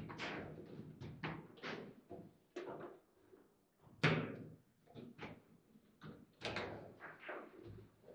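Table football (foosball) game in play: a string of irregular sharp knocks and clacks as the ball is struck by the plastic figures and rattles about the table, the loudest about four seconds in.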